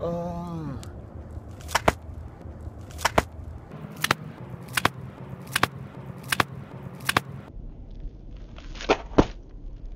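A clogged foot stamping on a crust of ice over packed snow: about a dozen sharp cracks at irregular intervals, some in quick pairs.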